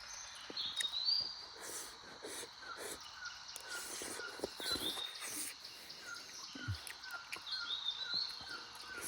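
Birds calling: a short chirp repeating about twice a second, and a rising call three times, a few seconds apart.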